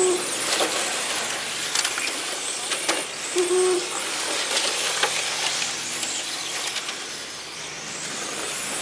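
Electric RC racing cars running laps on an asphalt track: their motors whine, rising and falling as they pass, with tyre hiss and scattered clicks. Two short low hooting tones sound, one at the very start and one about three and a half seconds in.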